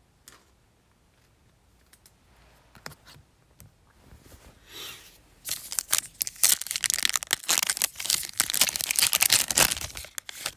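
Foil trading-card pack being torn open and crinkled by hand. A few light clicks at first, then a dense crackling rustle of the foil wrapper from about five seconds in until near the end.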